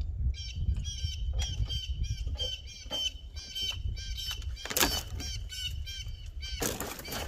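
A bird calling in quick repeated notes, about three a second, over a low wind rumble on the microphone. Scrap junk clanks loudly twice as it is shoved into a wrecked pickup's cab, about five seconds in and again near the end.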